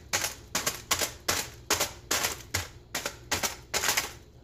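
Knife tip repeatedly stabbing holes through a folded aluminium-foil packet of wood chips on a granite countertop: a sharp, crinkly tap with each stab, about ten of them at two to three a second.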